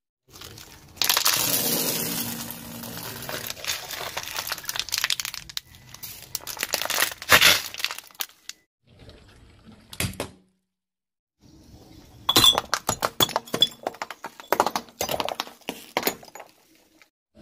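A car tyre rolls over and crushes plastic bottles, with a long crackling crunch of the plastic giving way and single sharp cracks. Near the end a ceramic object breaks under the tyre in a quick run of sharp cracks as it shatters into shards.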